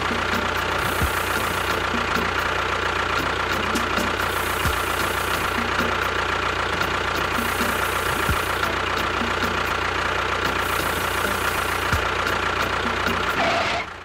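Engine running steadily at an even speed, with a faint swishing that comes back about every three and a half seconds; it cuts off suddenly near the end.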